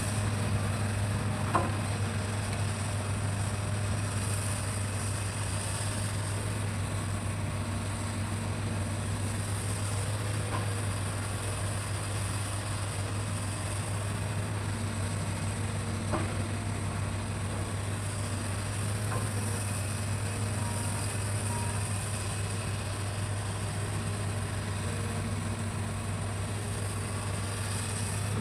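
Hitachi excavator's diesel engine running at a steady speed with a constant low hum, with a few faint clicks.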